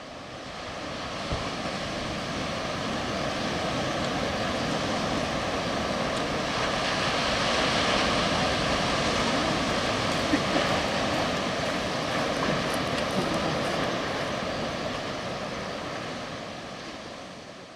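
Steady roar of breaking ocean surf. It fades in at the start and out at the end.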